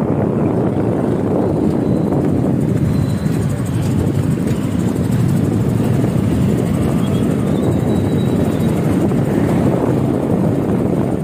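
Steady rush of wind and engine noise heard from a moving motorbike or scooter, the wind buffeting the phone's microphone.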